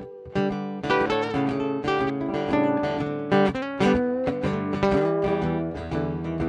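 Acoustic guitar playing an instrumental break with quick picked notes over strummed chords, after a short pause right at the start.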